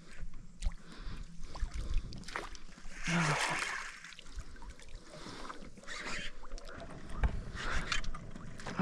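Water splashing around a small boat, with irregular knocks and a louder splashy stretch about three seconds in.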